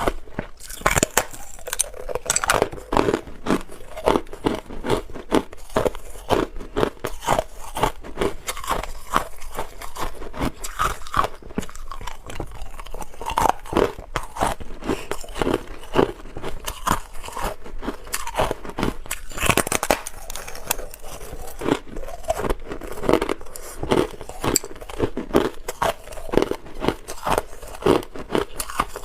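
A person biting and chewing hard clear ice: a dense, irregular run of crisp crunches and cracks, several a second.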